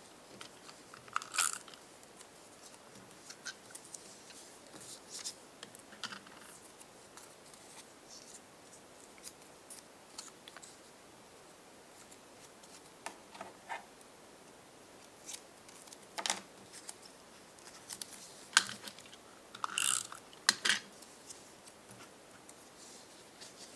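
A paper strip folded and creased into a triangle by hand: scattered soft rustles and short sharp clicks of paper, several close together about 16 to 21 seconds in.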